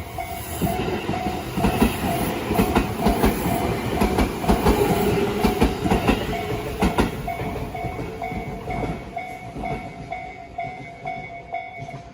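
A Tobu Nikko Line train passing over a level crossing, its wheels clattering over the rail joints, loudest in the middle and fading toward the end. The crossing's electronic warning bell rings in an even, rapidly repeating ding throughout.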